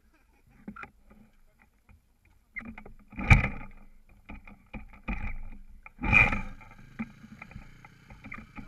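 YCF 125cc four-stroke pit bike engine being started. There are two loud bursts, about three and six seconds in, and after the second it settles into a steady low idle.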